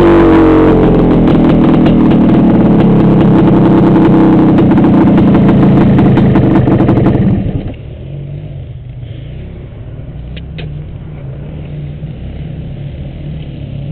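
Trail motorcycle engine running loud at steady high revs, then dropping abruptly to a much quieter low idle about seven and a half seconds in.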